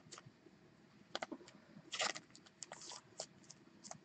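Faint, scattered clicks and scuffs of a thick trading card being handled and turned in the fingers, with a slightly longer rub about two seconds in.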